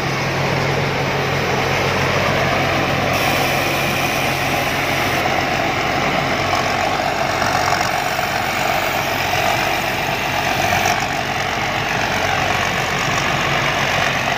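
Rice combine harvester (harvester-thresher) running, a loud, steady engine and machinery noise.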